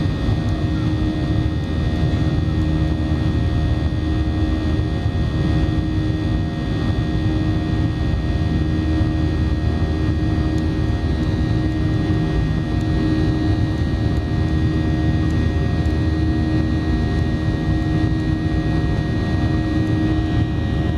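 Boeing 737-800's CFM56-7B turbofan engines heard from inside the cabin during takeoff: a steady, loud drone with a deep rumble and several steady whining tones.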